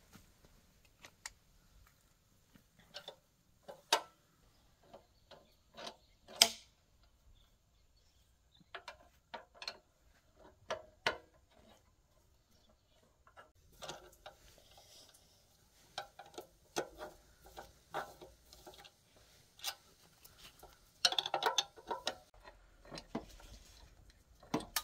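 Irregular metallic clicks, taps and clinks of hand tools and engine parts being handled on a small diesel engine, with a denser clatter near the end.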